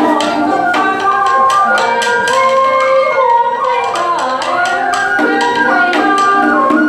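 Traditional Vietnamese water-puppet music: a pitched instrument plays a sliding melody over a steady run of sharp percussion strikes.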